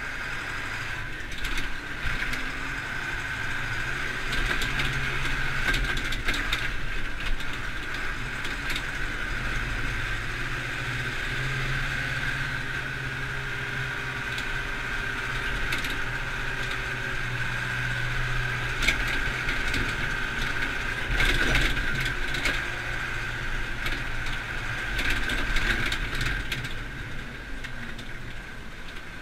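Zetor Forterra 115 tractor's four-cylinder diesel engine running steadily while driving, heard from inside the cab, with a steady high whine and scattered rattles and knocks from the cab.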